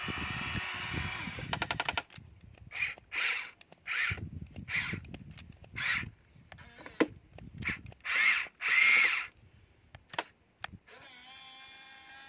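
The small electric motors of a toy remote-control excavator. A steady whir at first breaks off into a rapid run of gear clicks, then comes a string of short whirring bursts, about one a second, as the boom and bucket move.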